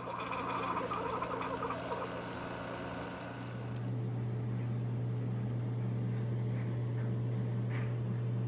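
Single-serve coffee maker dispensing coffee into a mug: a stream of liquid splashing into the cup over a steady machine hum. The stream stops about three and a half seconds in, and the hum carries on, a little louder.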